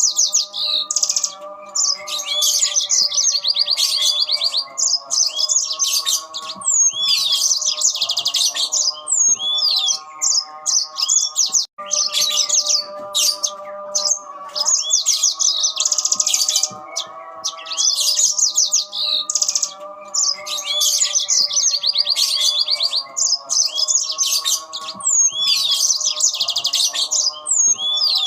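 Yellow-fronted canaries (Mozambique canaries) singing back and forth in fast chirping trills, with the same song passage repeating about every 12 seconds. A steady drone of several held tones runs underneath.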